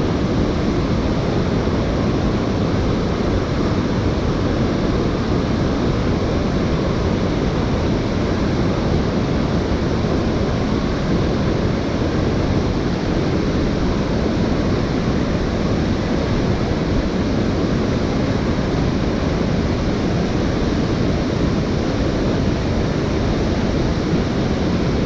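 Steady rush of a mountain stream's flowing water, an even, unbroken noise.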